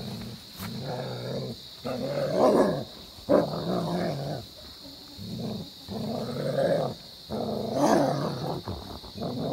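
German Shepherd growling during rough play, in a string of rasping growls about a second long with short breaks between them.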